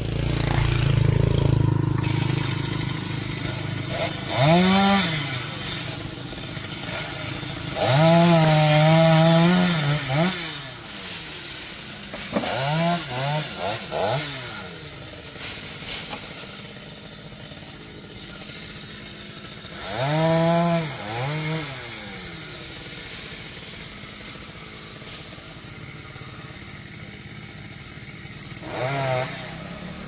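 A chainsaw high up in a tree, revved in about five short bursts that each rise and fall in pitch, dropping back to a low run between them. A vehicle passes on the road at the start.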